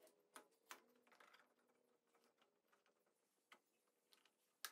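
Faint clicks and knocks of a steel bar clamp being slid into place and tightened against a wooden block on a plywood table-saw sled, a few in the first second and a half and the sharpest near the end.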